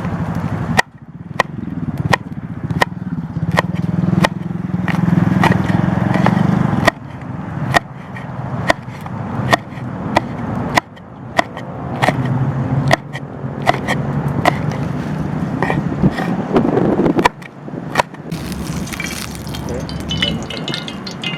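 Chopping on a cutting board: sharp, evenly spaced strokes about every three-quarters of a second, over a steady low rumble.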